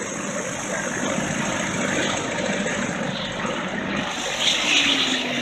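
Air ambulance helicopter running on the ground, its engine and rotor a steady noise.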